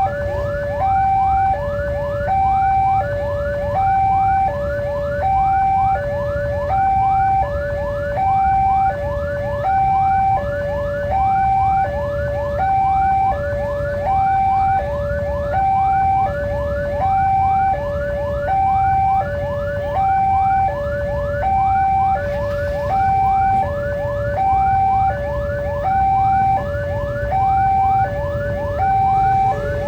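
Railway level-crossing warning alarm sounding, the sign that a train is approaching or passing: a higher and a lower tone alternating about once a second, with a quick string of short rising chirps above them. A steady low rumble runs underneath.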